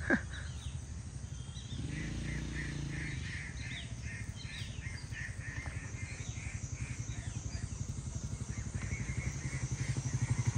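Vintage Honda CG single-cylinder four-stroke motorcycle running as it comes closer, its pulsing exhaust growing louder towards the end. Birds chirp over it in the middle.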